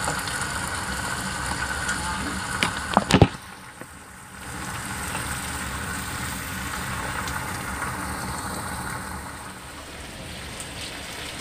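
Cubed potatoes sizzling in soy-sauce seasoning in a frying pan as they are stirred with a spatula. There are a few sharp knocks about three seconds in, then a brief dip, and the steady sizzle goes on.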